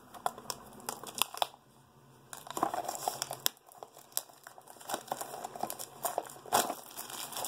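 Crinkly packaging of a Funko Mystery Minis blind box being crumpled and handled, a run of sharp crackles with a short lull about two seconds in and a louder snap near the end.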